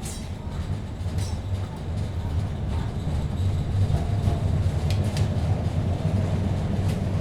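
A 1951 PCC streetcar (ex-Toronto A15 class) running on rails. A low rumble grows steadily louder as the car gathers speed, with a few sharp clicks and a faint whine coming in about halfway.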